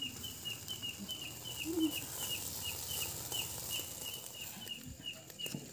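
A steady run of short, high chirps, about three a second, from a calling insect, over a faint hiss.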